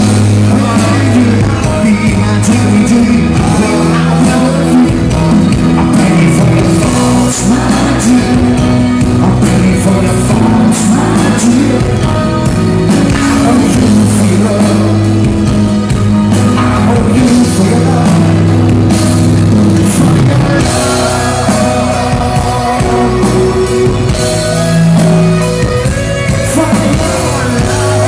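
Live rock band playing loud through a PA, heard from the audience: a male lead vocalist singing over electric guitars, bass, keyboards and drums.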